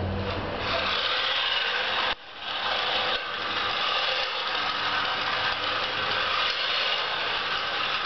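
Small electric motors of a homemade robot vacuum cleaner whirring steadily as it drives over the floor, briefly dropping out about two seconds in and then picking up again.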